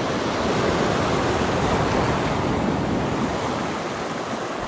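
Sea waves breaking and washing over shoreline rocks: a steady surf noise that swells over the first couple of seconds and then eases off slightly.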